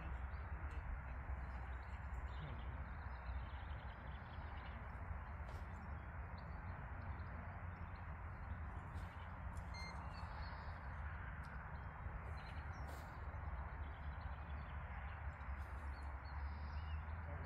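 Steady outdoor background noise with a low rumble, and a few faint, short bird calls.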